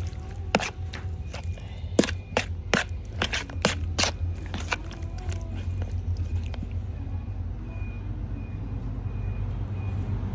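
Metal spoon stirring raw beef slices in an oily marinade in a plastic bowl: quick sharp clicks and scrapes of the spoon against the bowl and wet squishing of the meat, thick over the first five seconds and sparser after. A steady low rumble runs underneath.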